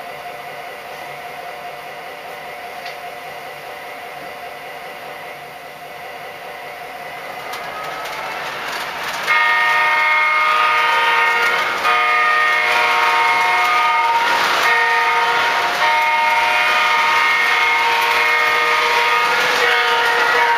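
MTH O-scale Conrail GP20 model diesel locomotive's sound system running, growing louder as the train approaches. About nine seconds in, its multi-note air horn starts blowing in long blasts with brief breaks, while the train rolls past.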